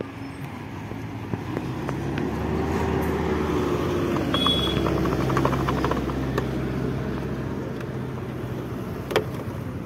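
A car running on the road, its steady low engine hum and road noise building over the first few seconds. A brief high beep comes about four and a half seconds in, and a sharp click near the end.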